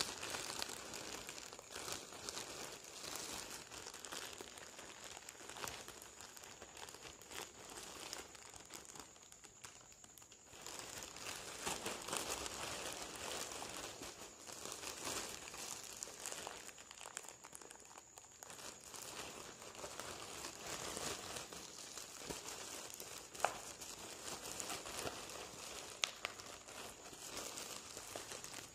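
Thin plastic courier mailer bag crinkling and rustling as it is handled and pulled open, with a short lull about a third of the way in and a couple of sharp snaps late on.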